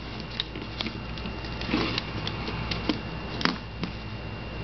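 Irregular small clicks and taps of the plastic cable tester being handled, its two halves slid and turned against each other.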